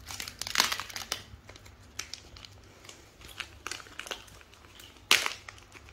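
Foil snack wrapper crinkling as it is handled and opened, with irregular crackles and two louder sharp crackles, about half a second in and about five seconds in.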